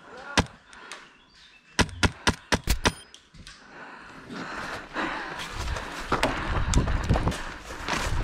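Sharp snaps of an airsoft rifle firing: a single shot, then a quick string of about seven shots in roughly a second. After that comes a rising rustle with dull thuds of a player moving through the field.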